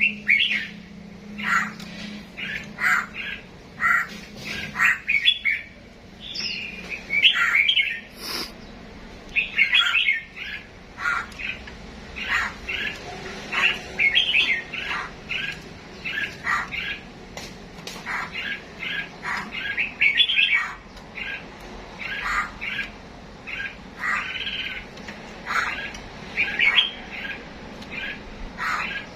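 Cage birds chirping, a steady stream of short, overlapping calls with no pauses.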